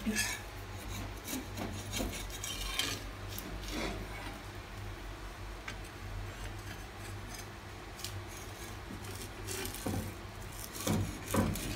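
Metal spatula scraping on a dosa pan in a few short rasping strokes, loosening the dosa from the hot iron, over a steady low hum.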